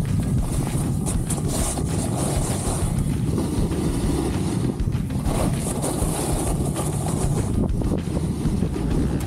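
Wind buffeting the microphone: a dense, gusting low rumble with no steady tone.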